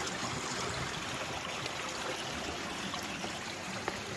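A stream trickling and flowing steadily among the boulders at the bottom of the notch. There is one light click near the end.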